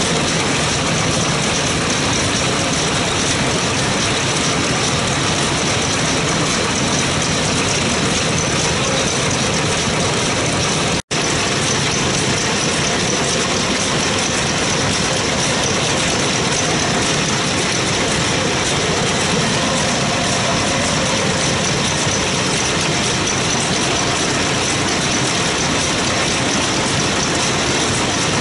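Denyo D-type engine welder's two-cylinder diesel engine running steadily. The sound breaks off for an instant about eleven seconds in.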